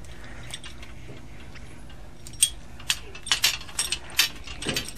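Metal clicking and clinking of a handheld flaring tool being fitted onto copper tubing. About the first two seconds are quiet; then come irregular, sharp clicks.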